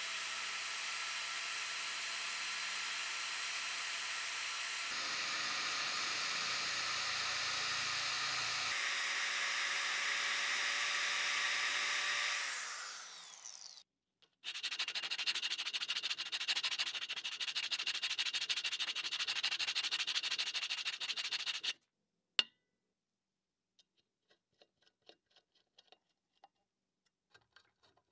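Electric drill running with a steady whine as it bores into a wooden block, then winding down about 13 seconds in. Sandpaper then rasps quickly back and forth over the wood for about seven seconds. After one sharp click come faint scattered ticks of a screwdriver turning small screws.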